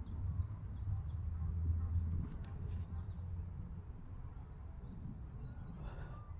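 Outdoor ambience: small birds chirping over a steady low rumble, with a quick trill of repeated notes about five seconds in.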